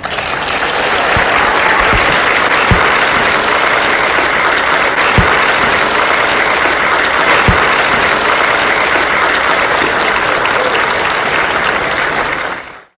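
Audience applauding steadily in a hall, a dense, even clapping that holds for about thirteen seconds and then cuts off abruptly.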